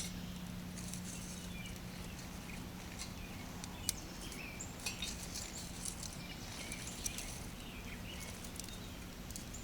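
Small wood fire crackling in an IKEA hobo stove: scattered sharp pops and snaps over a steady low hum.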